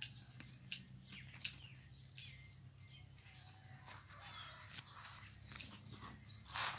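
Quiet, scattered footsteps and the rustle of tomato plants brushed in passing, with a few faint bird chirps.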